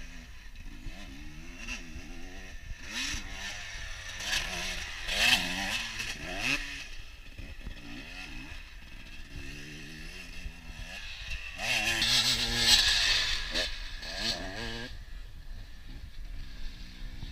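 KTM 250 EXC two-stroke dirt bike being ridden around the track at a distance, its engine revving up and falling back again and again as it works through the gears. It swells louder twice, a few seconds in and again about two-thirds of the way through.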